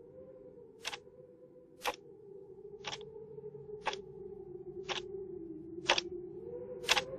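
Clock-like ticking, one sharp tick a second, seven in all, over a faint low hum that wavers slightly. It is the quiet sound-design opening of a ballad's music video.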